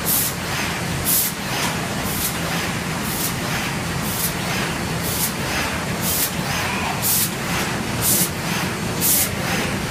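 A machine runs with a steady hum, with short hissing bursts about once a second.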